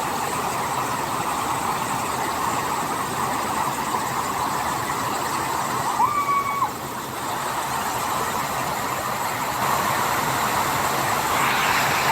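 Waterfall rushing in a steady roar, with a short whistled note about halfway through and two more near the end.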